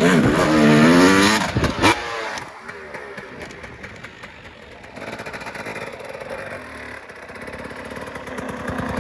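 Dirt bike engine revving hard, its pitch rising and falling for about a second and a half, then dropping off to a fainter, steady running as the bike moves away.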